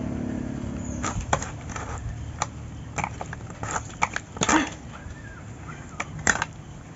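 Large pangas catfish being cut into steaks on an upright bonti blade: a series of sharp clicks and crunches as the blade is forced through the skin and backbone.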